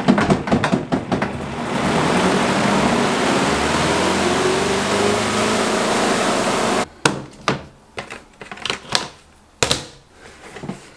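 Small electric motor of a compact portable washing machine running with a steady whir for about five seconds, then cutting off abruptly. Scattered clicks and clattering knocks come before and after it.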